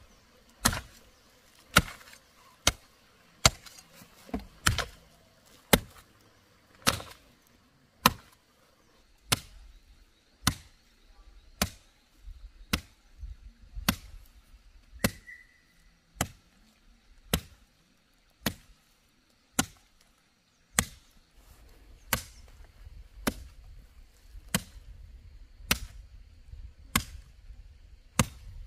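Steady chopping blows, about one a second, each a sharp crack, kept up at an even pace throughout.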